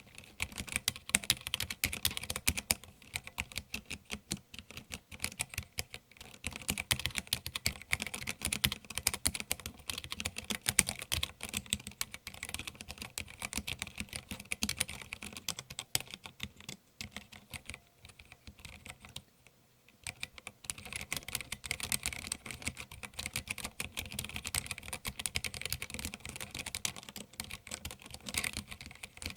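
Fast, continuous typing on a mechanical keyboard with Kailh Pro Burgundy linear switches, the keystrokes clattering in quick runs. About eighteen seconds in the typing eases off into a short pause, then starts again.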